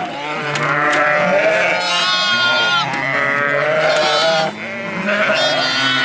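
A flock of ewes and young lambs bleating, many calls overlapping with hardly a gap between them.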